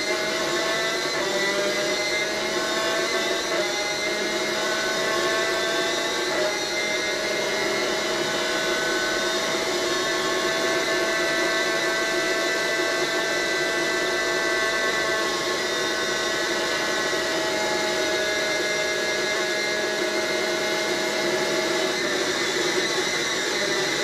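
Superkart's two-stroke engine running at high revs, heard onboard over steady wind and engine noise. The note holds high and even, with a few small steps in pitch in the first seven seconds, and falls away near the end.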